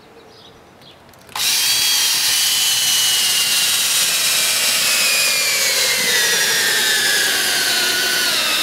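Cordless drill starting after about a second and a half and running steadily as its bit bores a pilot hole down through asphalt shingles into a roof rafter. Its whine falls slowly in pitch as the bit takes on the load of the solid wood.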